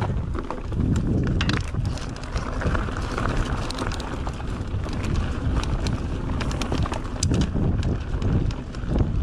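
Mountain bike ridden along a dirt trail: wind rumbling on the microphone, with frequent sharp clicks and rattles from the bike over rough ground.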